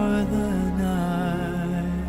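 Slow, gentle music with long held notes that waver slightly.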